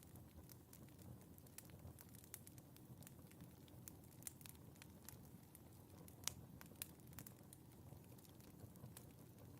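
Wood fire in a fireplace crackling faintly: irregular sharp pops and snaps over a soft low rumble, with one louder pop a little after six seconds in.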